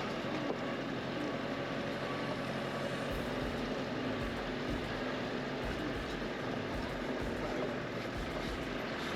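Engine of the vehicle towing a hayride wagon, running steadily under load, with wagon and road noise. Low rumbles join in about three seconds in.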